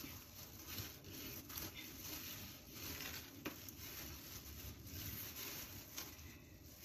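Faint rustling and a few light clicks of a bamboo sushi rolling mat as it is rolled and pressed around a nori roll by plastic-gloved hands, over a steady low hiss.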